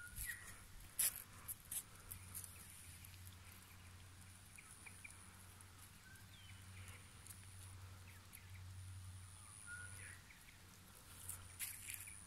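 Quiet outdoor background: a low steady hum, with a few faint short chirps and a couple of light clicks in the first two seconds.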